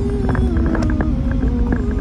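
Car cabin noise while driving: a steady low rumble of road and engine, with a faint gliding tone over it.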